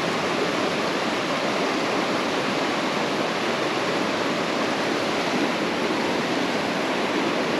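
Mountain stream water rushing and splashing over rocks, a steady even rush.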